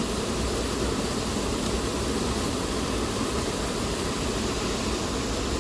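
Steady, even rushing of running river water.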